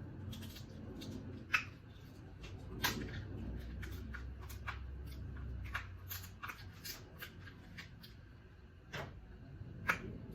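Seafood shells being handled and broken open by hand: a few sharp cracks and snaps with fainter clicks and crinkles between.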